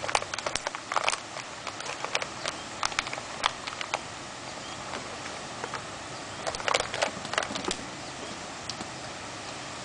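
Scattered light clicks and taps, coming in two bunches, over a steady hiss.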